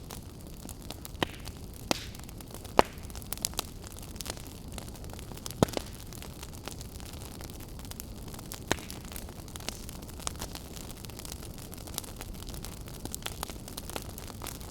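Wood campfire crackling: a steady low rushing noise under frequent sharp pops and snaps, the loudest pops about three and six seconds in.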